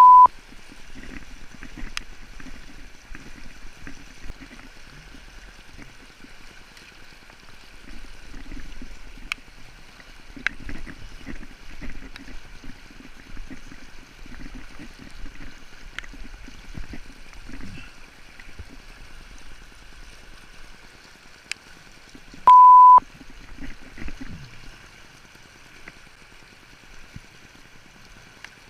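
River water running steadily past a boat hung up in the current, with irregular low rumbling bumps and a few sharp clicks. About two-thirds of the way through, a loud single beep tone lasts about half a second.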